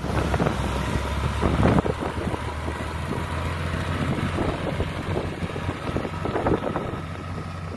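John Deere 2950 tractor's six-cylinder diesel engine running steadily as the tractor drives off across grass, with wind buffeting the microphone.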